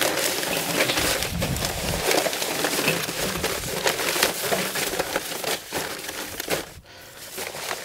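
Folded paper slips rustling and crackling as a hand stirs and shuffles through a heap of them in the bowl of a kettle grill. The crackle is dense and continuous, then dies down about seven seconds in.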